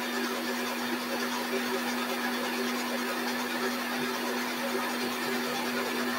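Electric stand mixer running steadily at one speed with its whisk attachment, whipping egg whites: an even motor hum with the whir of the beating.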